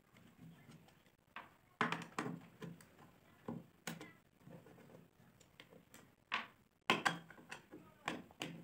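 Screwdriver turning out screws from the steel plate of an electric hand planer that is switched off: scattered clicks and taps of metal on metal, with a few sharper knocks about 2, 4 and 7 seconds in.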